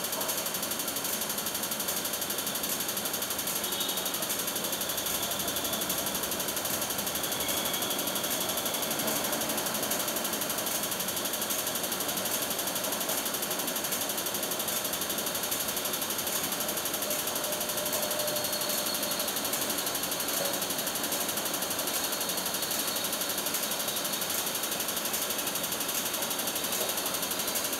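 Diesel-electric freight locomotive (a KCR EMD G16) running at a distance, heard as a steady, rapid mechanical clatter under a strong hiss.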